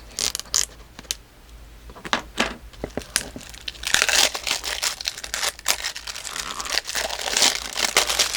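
Packaging being handled and unwrapped by hand: a few scattered clicks and taps, then from about four seconds in a dense, steady crinkling and tearing of wrapping material.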